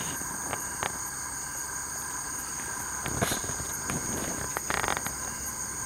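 Night insects trilling steadily in a high, even chorus, with a few light rustles and clicks close by.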